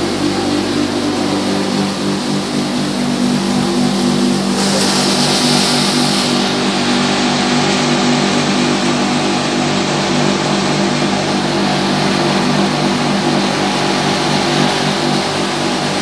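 Rice mill machinery running: a loud, steady mechanical drone with a fast regular pulse, and a stretch of hiss about five seconds in.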